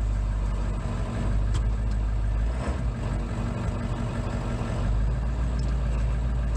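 Ford E450's 7.3-litre Powerstroke turbo-diesel V8 running steadily, heard from inside the cab, with a single sharp click about a second and a half in.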